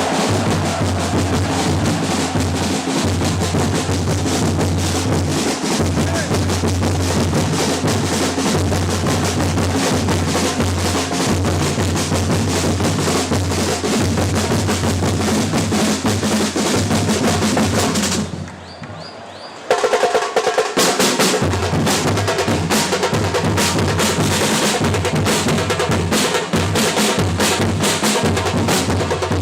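Football supporters' drum section playing a fast, dense rhythm on bass and snare drums, with the crowd singing along. The sound drops out briefly about two-thirds of the way through, then comes back.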